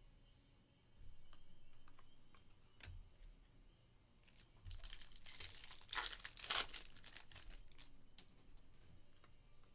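The foil wrapper of a Topps Stadium Club Chrome baseball card pack being torn open and crinkled: a rustling, tearing burst starting about four and a half seconds in and lasting about two seconds, with faint clicks around it.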